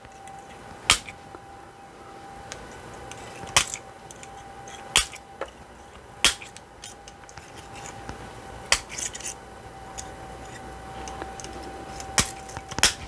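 Chicken wire being cut with wire snips: about seven sharp snaps at irregular intervals a second or more apart, with a faint steady hum underneath.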